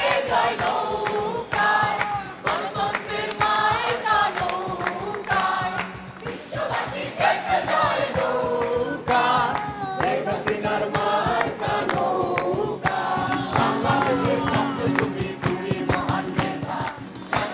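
A crowd of young men and women singing a song together, accompanied by strummed acoustic guitars and rhythmic hand clapping.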